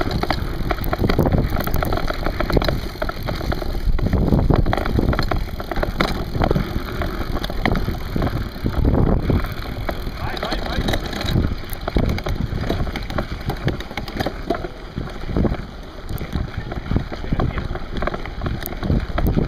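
Mountain bikes rolling over a dirt forest trail, a continuous rough rumble of tyres on earth with irregular clicks and rattles, mixed with wind buffeting the microphone.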